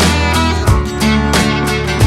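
Background music: a guitar-led track with strumming and a steady beat.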